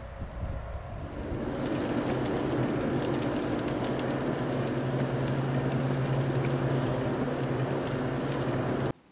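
Wind on the microphone for about a second, then a car driving on a wet road heard from inside: steady engine hum and tyre noise with scattered light ticks, cutting off suddenly near the end.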